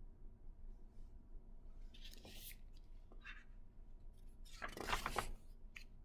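Paper pages of a picture book rustling as they are handled and turned, with a faint rustle about two seconds in and a louder one about five seconds in.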